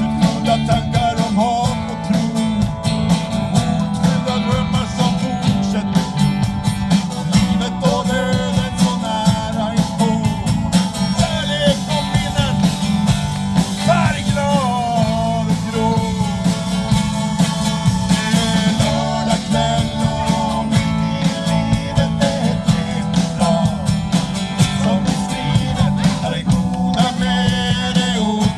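Live band playing through a PA: electric and acoustic guitars, bass guitar, keyboard and drums, with a steady drum beat.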